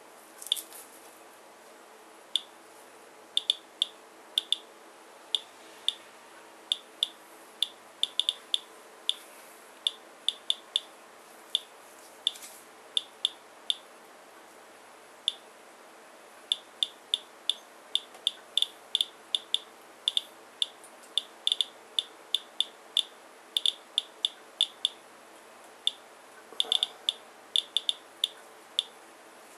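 Geiger counter chirping with short, high beeps at random, uneven intervals, roughly two to three a second, each one a detected count while it measures a rain-soaked paper towel sample; the count averages about 157 counts per minute.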